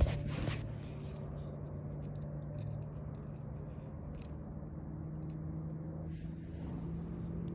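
Jeep ZJ's engine idling with a steady low hum, with a sharp click at the start and a few light scrapes and rustles of handling.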